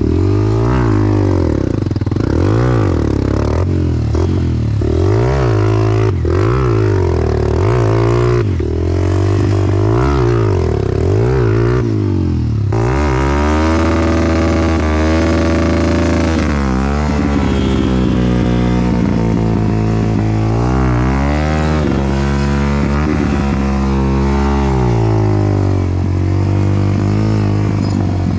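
Enduro dirt bike engine revving up and down in repeated surges about once a second. From about halfway through it runs on harder, with longer rising and falling sweeps and more rushing noise.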